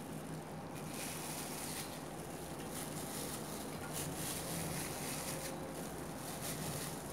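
Steady background noise: a low hum under an even hiss, with no clear event standing out.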